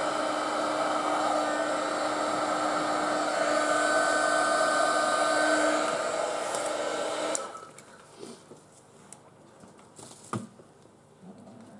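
Handheld heat gun running steadily, its fan making an even hiss with a faint whine, then switched off about seven seconds in. A single sharp knock comes near the end.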